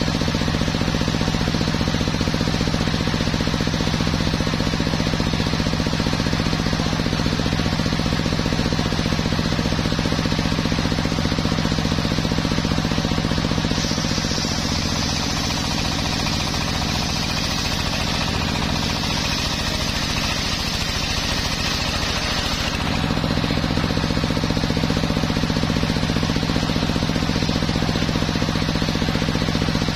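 Sawmill circular saw running steadily with a droning motor hum while it rips a teak log, sawdust spraying. Midway through, the cutting hiss sharpens and the drone sags in pitch for several seconds as the blade comes under load, then it settles back to the steady drone.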